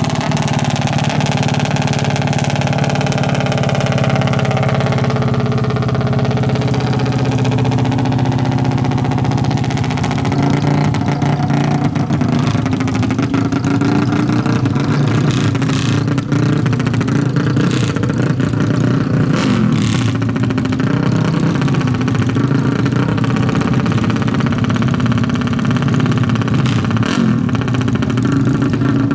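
Four-stroke race ATV engine running steadily at a fast idle, its revs rising and falling slightly.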